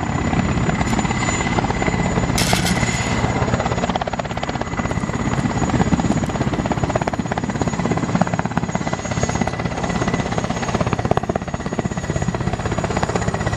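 Helicopter sound effect: a steady, rapid rotor chop with a thin high whine above it.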